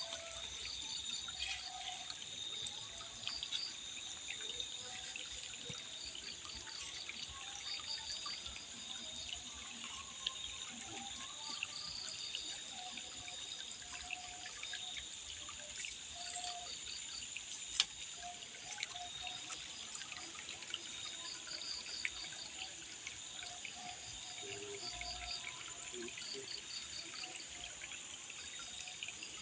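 Water trickling and dripping against a steady high insect drone, with short pulsed chirp trains recurring every few seconds.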